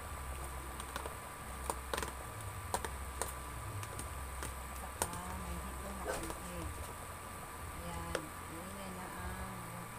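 Induction cooktop humming steadily under a pan of simmering soup, broken by scattered light clicks and taps. Near the end a ladle knocks in the pan.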